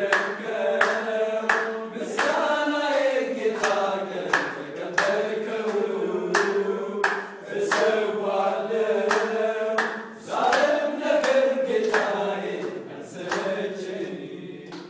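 A group of men singing a praise song together, clapping their hands in time at about two claps a second. The singing and clapping fade away near the end.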